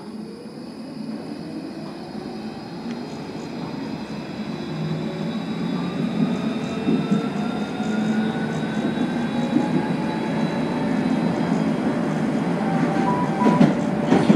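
Tram accelerating: the traction motors' whine rises slowly in pitch while the running noise of the wheels grows steadily louder.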